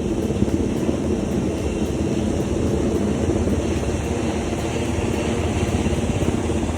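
A loud engine running steadily, starting suddenly and holding at an even level.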